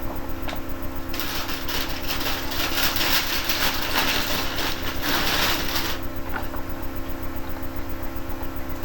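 Comics and box packaging being handled: a dense crinkling rustle from about a second in until about six seconds in, over a steady electrical hum.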